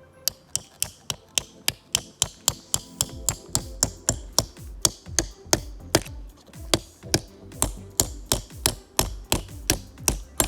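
A fast, even series of sharp strikes, about three to four a second, each with a low thud beneath it.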